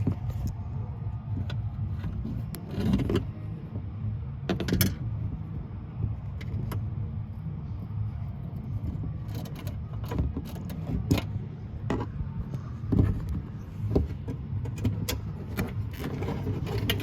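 Scattered clicks, taps and light rattles of a hook tool and wire being worked inside a UTV door cavity, over a steady low rumble.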